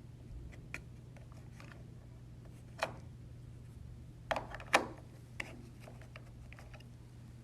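A handful of sharp clicks and knocks from small objects being handled, the loudest two close together about four and a half seconds in, over a steady low hum.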